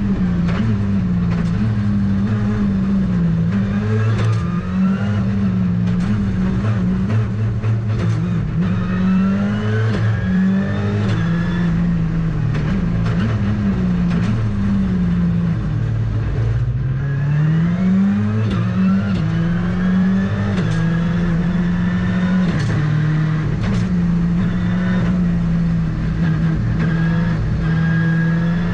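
Ford Fiesta R5 rally car's turbocharged four-cylinder engine heard from inside the cockpit, revving hard and climbing through the gears over and over. Its pitch dips low about two-thirds of the way through and then pulls up again in one long rise, with frequent short sharp cracks throughout.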